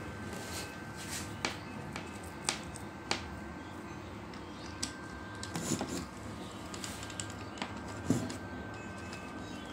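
Irregular sharp snaps, about ten of them, over a faint steady hum and a thin high whine. They come from a homemade 12 V to high-voltage electric fishing inverter while its output lead is held at the terminals, typical of sparks arcing in a firing test.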